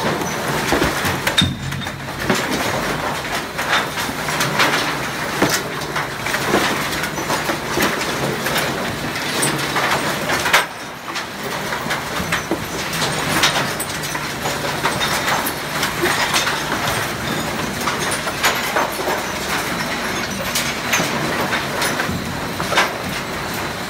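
Rotating trommel screen running with mixed rubbish tumbling through its perforated steel drum: a steady hum under continuous, irregular clattering and knocking, with a brief lull about ten seconds in.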